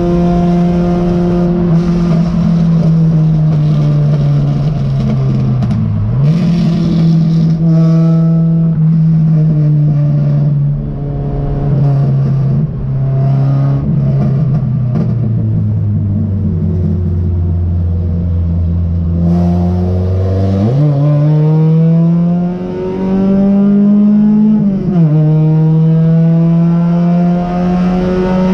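Race car engine heard from inside the cockpit under racing load, with road noise. Its pitch steps down several times as the car slows and holds low for a few seconds. About two-thirds of the way in the engine revs hard back up, with one quick gear change a few seconds later before it settles at high revs.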